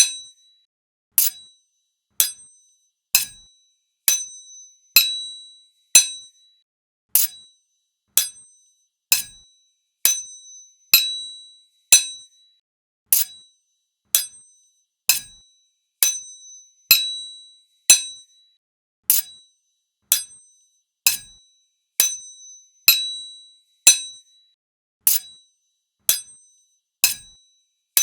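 Two swords (katana) clashing blade on blade, about once a second, each strike a sharp metallic clink with a short high ring.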